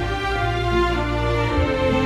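Orchestral soundtrack music: long held notes in several parts over a deep, sustained bass.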